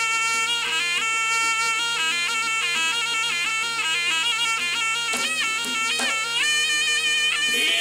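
Jaranan music led by a slompret, the East Javanese double-reed shawm, playing a nasal melody of held notes that step up and down.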